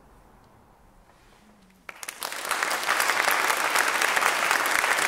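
A short quiet pause, then audience applause breaks out about two seconds in and quickly swells to steady, full clapping.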